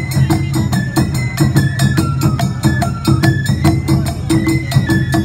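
Awa Odori street band playing. A shinobue bamboo flute carries a stepping melody over the fast, even clanging of an atarigane hand gong and steady beats of shoulder-slung taiko drums.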